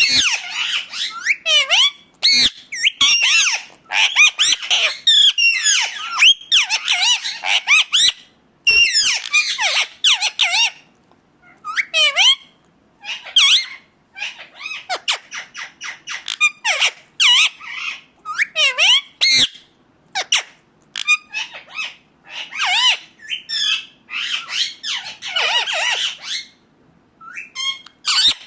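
Indian ringneck parakeet (rose-ringed parakeet) calling: rapid strings of high-pitched, sweeping chirps and squawks, broken by short pauses.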